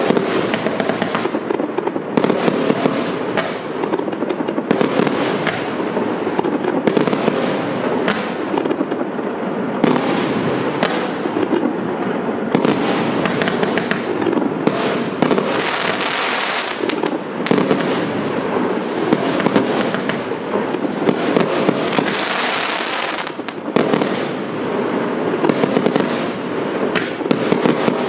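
Evolution Fireworks Maverick 134-shot compound barrage firing continuously: shots launching and shells bursting in rapid, overlapping succession, with stretches of brighter hiss partway through.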